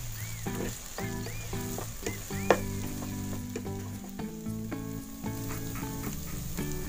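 Tempe and salted squid with chillies sizzling as they stir-fry in a nonstick pan, turned with a spatula, with one sharp click about two and a half seconds in. Background music with sustained, stepping notes plays over it.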